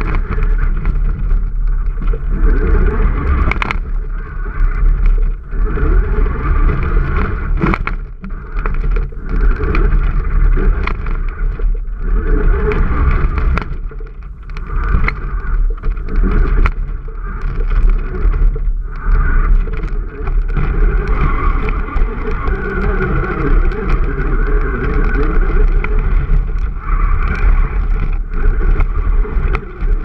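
Remote-control toy jeep's electric motor and gearbox whining, close up on the moving vehicle, the pitch rising and falling as its speed changes. Several sharp knocks and rattles come as it bumps into things along the way.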